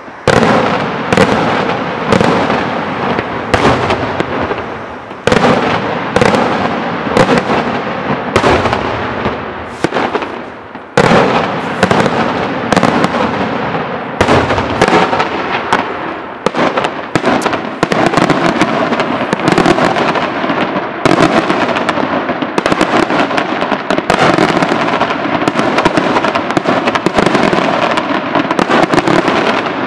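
Daytime fireworks display: aerial shells bursting in sharp bangs. Separate reports come about one or two a second at first, then from about a third of the way in they run together into a dense, near-continuous barrage.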